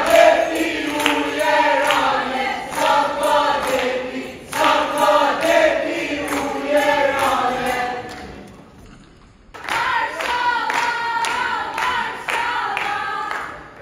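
A group of young women singing together on stage, with handclaps and a tambourine keeping a steady beat. The singing breaks off briefly about eight seconds in, then starts again.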